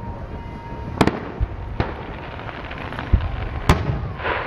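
Aerial fireworks shells bursting in the distance: several sharp echoing bangs, some about a second apart, with duller thumps between them and a short hissing crackle near the end.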